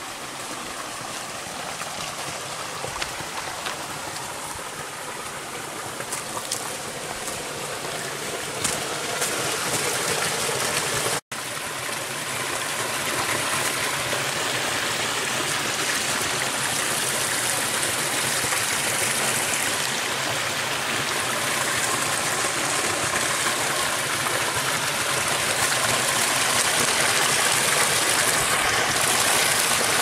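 Rocky creek rushing over a small cascade, the running water growing steadily louder as it comes closer. The sound cuts out for an instant about a third of the way in.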